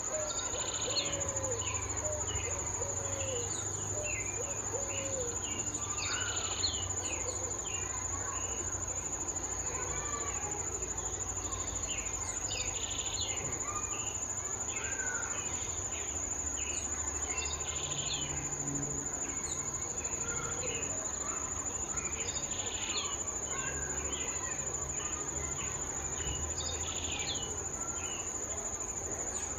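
Birds calling in short high chirps, repeated throughout, over a steady high-pitched insect drone. A run of lower slurred notes comes in the first few seconds.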